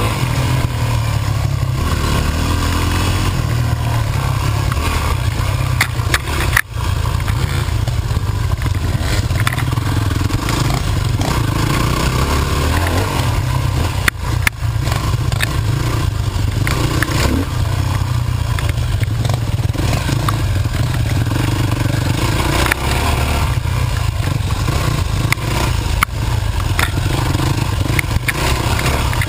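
Dirt bike engine running and revving as it is ridden fast over a rough, muddy trail, heard through a camera mounted on the bike or rider, with heavy low rumble and many knocks and rattles from the bumps. There are two brief sharp dropouts, the first about seven seconds in.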